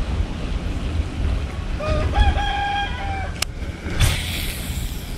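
A rooster crows once, about two seconds in, a single call that rises into a held note, over a steady low rumble of wind on the microphone. A sharp click follows, then a short rush of noise about four seconds in as a fishing rod is swung into a cast.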